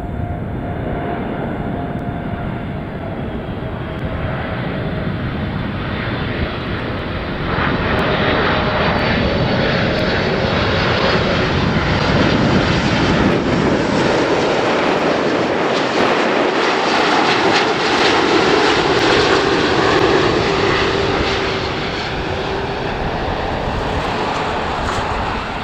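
Boeing 747-8 freighter's four GEnx turbofan engines as the jet flies past low on final approach with its gear down: a steady jet roar that swells about a third of the way in and eases off near the end, with a faint whine that slowly drops in pitch as it goes by.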